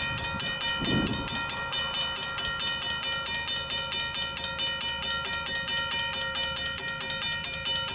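Railway level crossing warning bell ringing in a rapid, even rhythm of about four strikes a second, sounding because the crossing has just been activated for an approaching train.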